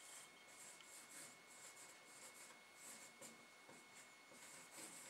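Faint scratching of a marker pen writing cursive letters on a white board, in short strokes that come and go.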